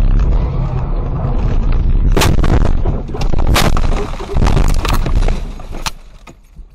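Car crash heard from inside the crashing car: a heavy rumble, then about four violent impacts with crunching, roughly a second apart, dying down near the end.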